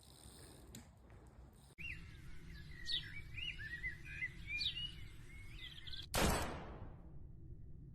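Small birds chirping in quick, varied calls, over a low background hum. About six seconds in, one loud rushing burst that dies away in under a second.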